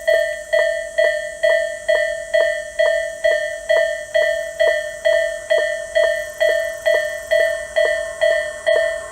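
Japanese railway level crossing's electronic warning bell, of the Tobu 'sound A' type, ringing steadily at about two dings a second, each ding a clear tone that fades quickly.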